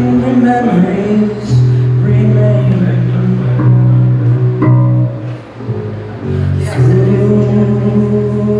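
Amplified electric bass guitar played live, holding and changing deep sustained notes, with a short dip in level about five and a half seconds in.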